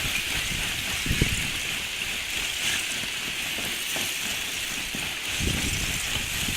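Lake ice shove: broken sheets of lake ice grinding and crackling as the wind drives them ashore, a steady hiss with a couple of low thumps.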